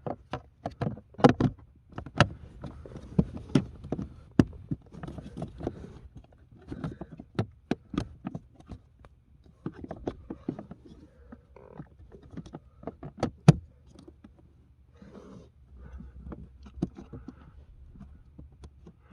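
Hands working a cabin air filter and its plastic housing cover into place: irregular plastic clicks and knocks with rustling between them, the sharpest knock about thirteen seconds in.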